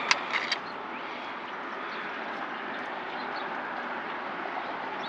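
Steady rushing of water pouring out below a large dam, with a few short clicks in the first half second.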